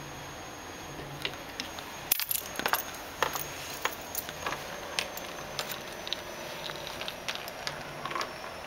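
Scattered sharp clicks, taps and knocks on window glass that is being washed from outside, irregular and densest about two to three seconds in.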